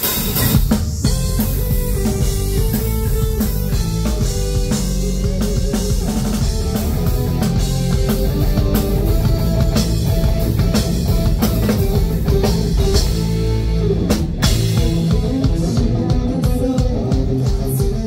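A rock band playing live: a pounding drum kit with electric guitars and bass, with a brief break about fourteen seconds in.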